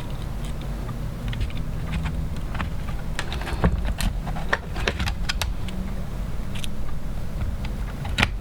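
Scattered small clicks and taps of hands handling small camera parts and tape, thickest in the middle, over a steady low hum.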